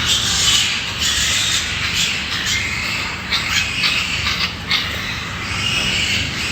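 Pigs calling: a steady noisy din of many animals, with a run of short, sharp calls in the middle.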